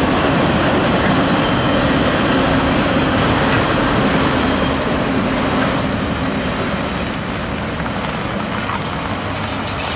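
Freight train's enclosed autorack cars rolling past on the rails: a steady rolling noise of steel wheels on track, easing somewhat from about halfway as the cars draw away.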